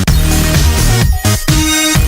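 Electronic dance music with a heavy bass line, a steady beat and falling pitch sweeps.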